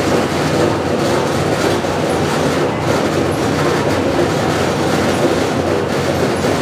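A loud, steady mechanical rumble with a fine rattle running through it, unchanging throughout.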